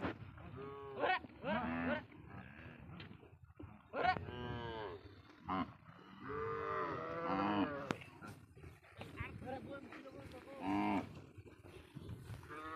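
A herd of cows and calves mooing, one call after another, about half a dozen calls with some overlapping. A single sharp click comes about eight seconds in.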